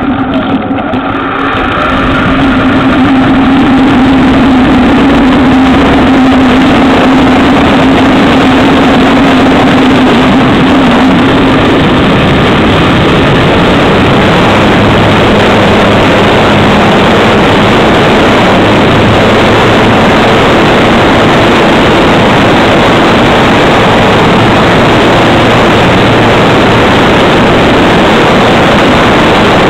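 Onboard sound of a 1400 mm FMS Cessna 182 model plane's electric motor and propeller through the takeoff and climb. The sound swells over the first couple of seconds as the throttle opens. A steady tone fades after about 12 seconds into an even rushing din of motor, propeller and air on the microphone.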